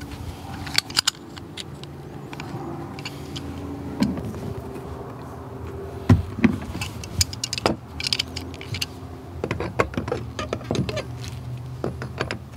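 Pliers clicking and clinking against copper pipe adapters and plastic bulkhead fittings as they are worked and tightened, in irregular short knocks with a sharper one about halfway through. A steady low hum runs underneath.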